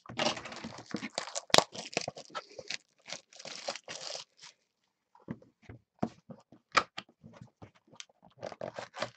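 Cardboard trading-card box being torn open: a dense run of tearing and rustling for about four seconds with one sharp snap partway through. After that come scattered lighter rustles and taps as the foil packs inside are handled.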